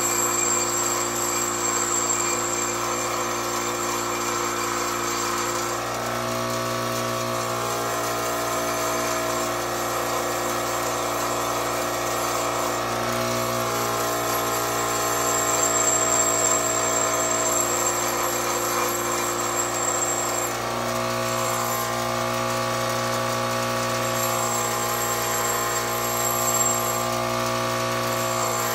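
Bench grinder running steadily while a metal knife guard is held against its spinning wheel and ground, throwing sparks.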